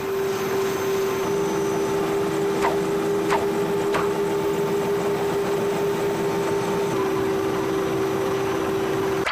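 A steady droning hum with hiss, holding two close low tones, with three light clicks about two-thirds of a second apart a few seconds in.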